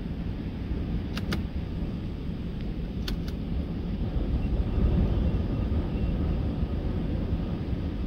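Steady low rumble of a car's tyres rolling over a gravel road, heard from inside the cabin, with two quick pairs of sharp ticks about one and three seconds in.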